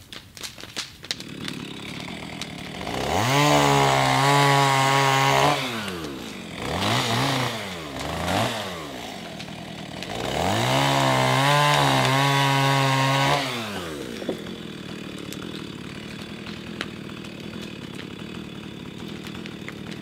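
Two-stroke chainsaw idling, then revved to full throttle twice for two or three seconds each, with two short blips in between, before dropping back to a steady idle.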